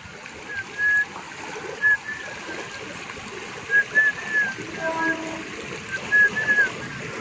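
A person whistling a tune in short high notes, some gliding, over the steady rush of a flowing stream.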